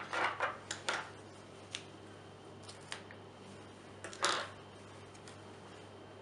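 A few short, crisp rustles as pheasant tail fibres are pulled from the feather and handled for tying in. There is a quick cluster at the start and the loudest rustle comes about four seconds in.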